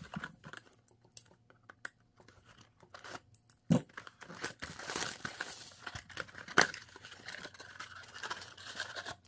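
Plastic shrink wrap crinkling and tearing as a cardboard trading-card blaster box is unwrapped and opened, with a few sharp knocks from the box being handled; the rustling tear runs through the second half.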